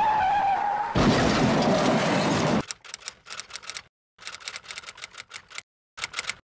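Typewriter key clacks used as a sound effect: a rapid, uneven run of sharp clicks with short silent pauses, beginning a little under three seconds in. Before them come a short falling tone and about a second and a half of hiss, louder than the clicks.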